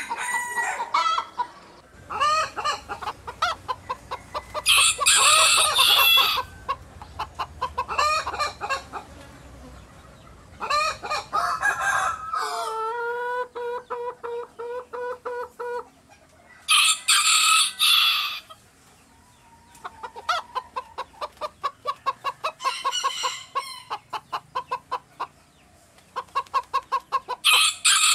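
Domestic chickens clucking in quick runs, with several loud shrill squawks and a rooster's crow about halfway through that ends in one long held note.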